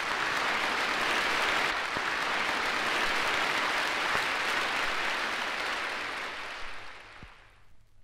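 Concert audience applauding at the end of a song on a live-recorded vinyl LP. The applause fades out about seven seconds in, leaving a few faint clicks from the record.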